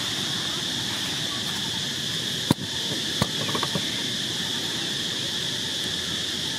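Steady high-pitched drone of insects, with a sharp click about two and a half seconds in, then a smaller click and a few light ticks.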